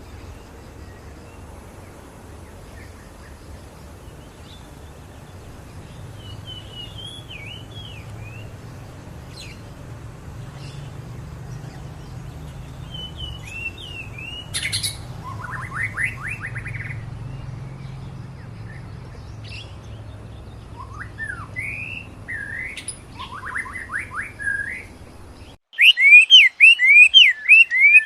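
Songbirds chirping and trilling now and then over a low steady rumble. About 25 seconds in the rumble stops abruptly and much louder, rapid repeated chirps take over.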